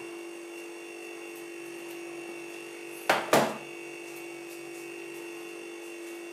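A steady hum, the refrigerator running with its door open, with two sharp knocks about three seconds in as a covered bowl is set down on a fridge shelf.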